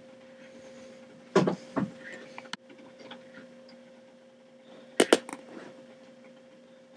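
A few sharp knocks and clicks, a cluster about a second and a half in and another about five seconds in, over a steady low electrical hum.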